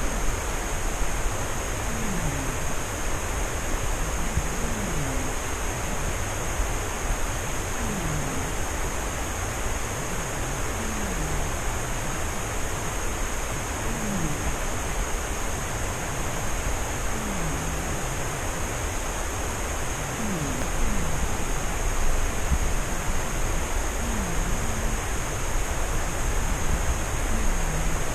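A sleeping cat snoring, one short snore falling in pitch about every three seconds, under a loud steady hiss.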